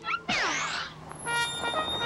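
Cartoon sound effects: a quick whoosh with falling pitch about a third of a second in, then held musical tones starting about halfway through.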